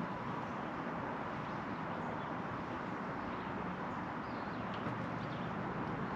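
Steady open-air noise on a lake: wind and water lapping around a boat, with no distinct events.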